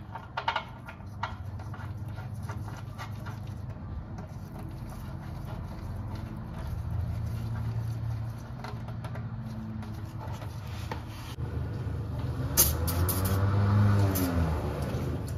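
An aerosol can of brake cleaner spraying in a hissing burst of about two seconds near the end, starting with a sharp click of the nozzle. Before it there is a low steady hum and a few light clicks of handling at the oil filter.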